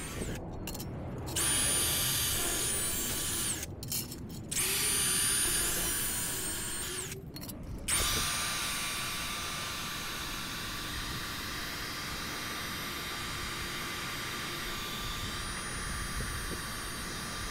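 Cordless angle grinder with a thin cut-off wheel cutting 19-gauge steel sheet. The motor's whine starts up three times, about a second and a half, four and a half and eight seconds in, and then runs steadily.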